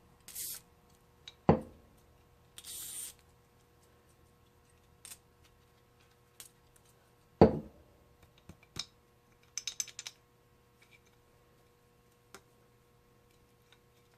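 Adjustable wrench and metal parts of an old pneumatic impact wrench being worked at a seized fitting: two sharp metal clanks about six seconds apart, short scrapes, and a quick run of small clicks.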